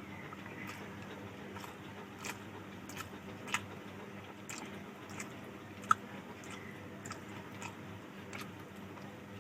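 Close-up chewing of rice and fish curry: wet mouth clicks and smacks at an irregular pace, with one sharper click about six seconds in.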